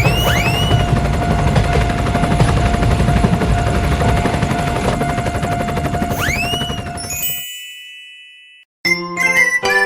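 Cartoon sound effects: springy rising-and-falling jump glides over a loud rumbling clatter that fades out about seven seconds in. After a brief silence, a tinkling chime melody starts near the end.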